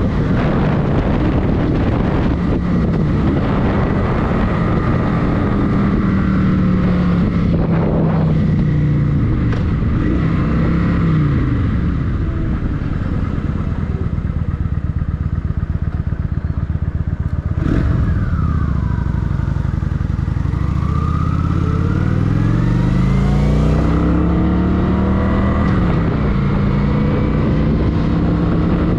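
2023 Kawasaki Vulcan 900 Custom's V-twin engine running on the road. Its note falls as the bike slows about ten seconds in and stays low for several seconds. From about twenty seconds in it climbs in steps as the bike accelerates through the gears, with a single knock just before.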